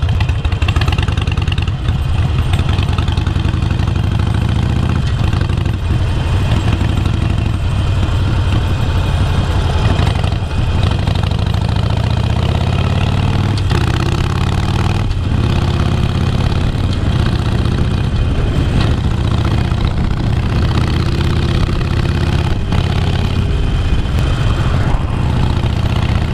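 Harley-Davidson XL1200X Forty-Eight's 1200 cc air-cooled V-twin, idling at a stop with first gear clunking in, then pulling away and accelerating through the gears, its pitch rising and dropping with each shift.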